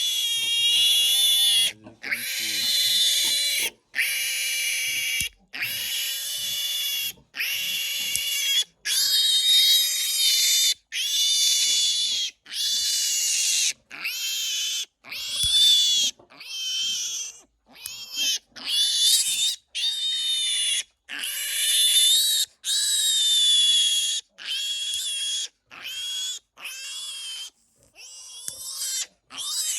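Newborn piglet squealing over and over while it is held for teeth and tail clipping: high, shrill squeals about a second each, broken by short gaps for breath.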